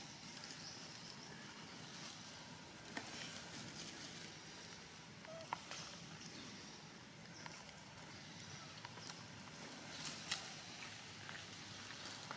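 Faint outdoor background hiss with a few scattered sharp clicks and ticks, the loudest about ten seconds in.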